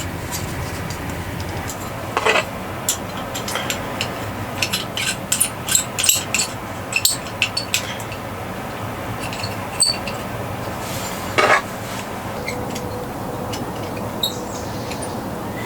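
Metal cookware and utensils clinking and clattering as they are handled. There is a run of quick clinks in the middle and two louder scrapes, over a steady background noise.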